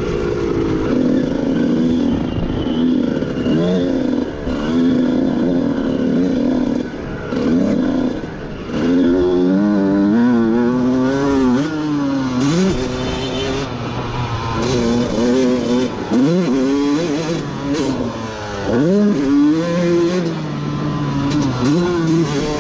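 Dirt bike engine being ridden hard, revving up and easing off over and over. Its pitch climbs steeply and then drops again several times, most sharply about ten, thirteen, sixteen and nineteen seconds in.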